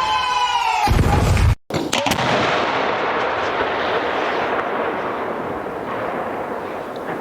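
A firework's whistle slides down in pitch and ends in a loud boom about a second in. After a brief break, a steady hiss with scattered sharp cracks follows.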